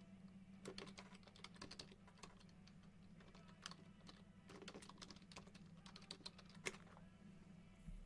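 Faint bursts of light clicking and tapping in short clusters over a steady low hum.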